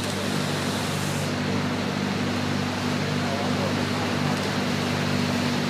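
Vehicle driving through floodwater, heard from inside the cab: a steady low engine hum under the rush and wash of water pushed aside.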